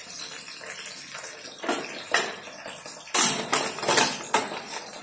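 Stainless steel pressure cooker lid clattering and scraping against the pot as it is set on and closed, with a few light knocks earlier and the loudest metal clatter a little past the middle.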